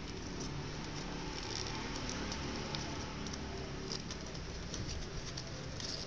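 Origami paper crinkling and rustling in the hands as it is folded, small scattered crackles over a steady background hiss.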